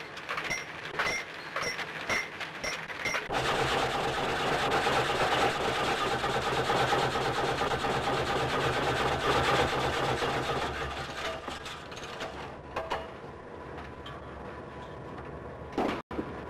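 Belt-driven sawmill machinery running, with a regular clacking about twice a second. About three seconds in, a much louder, dense, steady machine noise with a low hum takes over and slowly eases off after about twelve seconds.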